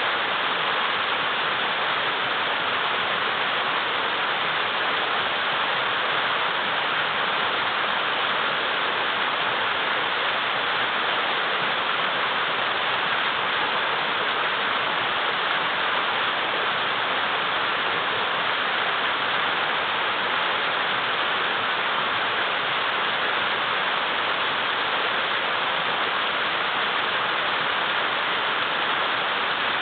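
River water rushing and churning over large boulders, a steady, even roar with no breaks.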